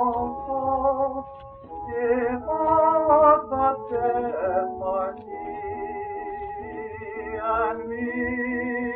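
1954 recording of a male vocalist singing a wedding song set to words from the Book of Ruth, with vibrato on the held notes, over sustained accompanying chords. A low rumble from the old recording runs beneath.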